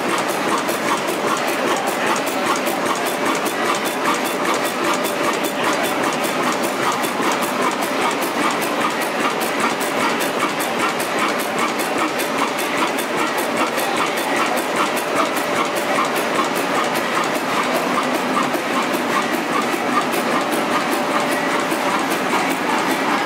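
Crossley horizontal stationary engine running at a steady speed, with a fast, even mechanical clatter.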